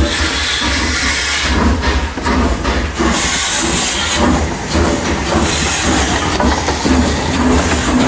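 A train running, with a continuous low rumble, a hiss and a repeated rhythmic clatter.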